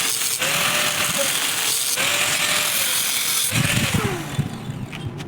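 Electric angle grinder grinding metal with a loud, harsh hiss, its motor pitch wavering as it is pressed into the work. About three and a half seconds in it is released and winds down, the pitch falling away.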